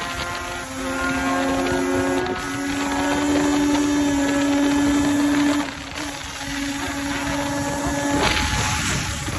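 Yamaha Banshee 421 quad's two-stroke twin engine running at a steady high pitch under way, with wind rushing over the microphone. The engine note steps up slightly about two seconds in, drops off a little past halfway as the throttle eases, and a surge of wind noise comes near the end.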